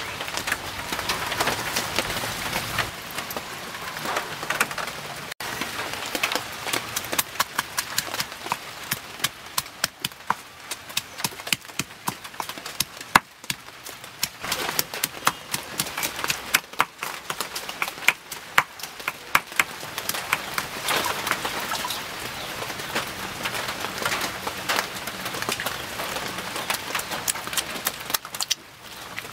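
Stone pestle pounding ingredients in a stone mortar: a long run of quick, sharp knocks. Before it, for about the first five seconds, a small knife scrapes while peeling a shallot.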